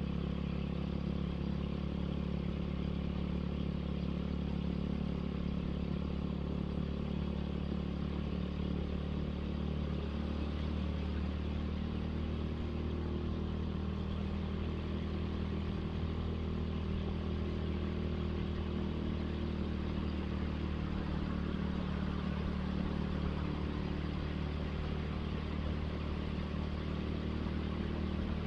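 Suzuki Satria FU motorcycle engine running at a steady cruise while riding, its note holding even throughout.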